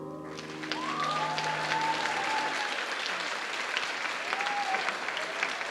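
Audience applauding as the last chord dies away, the clapping swelling within the first second and continuing steadily, with a few drawn-out calls from the crowd over it.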